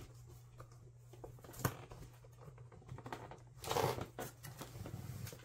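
A cardboard box with metal clasp tabs being handled and opened by hand: a sharp click about a second and a half in, then a short scrape of cardboard a little under four seconds in as the lid comes up, with small taps and rustles between.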